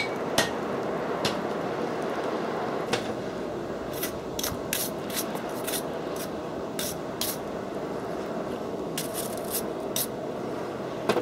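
Steady rushing of a coal forge's fire under forced air from its squirrel-cage blower, with scattered sharp taps clustered around four to six seconds in and again near ten seconds.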